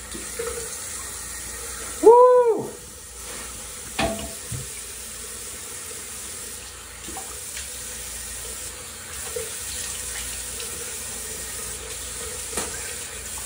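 Bathroom sink tap running steadily while a face is washed under it. About two seconds in comes a loud, short pitched sound that rises and then falls, and a couple of sharp knocks follow later.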